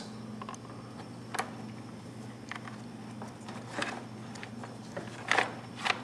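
A few short rustles and clicks of hands working a wire among a scooter's plastic panels and harness, the loudest two near the end, over a steady low hum.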